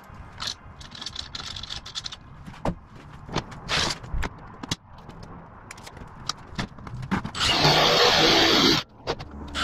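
Light clicks and knocks of tools handled on a metal sheet, then, about seven seconds in, a cordless drill runs at speed boring through aluminium sheet, stopping after a second and a half and starting again just before the end.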